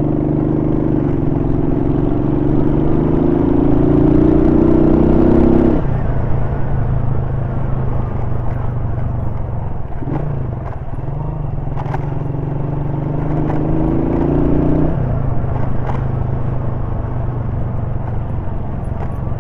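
A 1999 Honda CG Titan's single-cylinder 125 cc engine running on the move, its pitch rising as the bike accelerates and dropping suddenly at a gear change about six seconds in. It pulls up again and shifts once more about fifteen seconds in.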